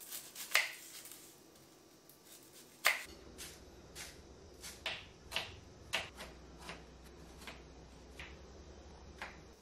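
Kitchen knife chopping on a wooden cutting board: light, irregular taps of the blade striking the board, about one or two a second.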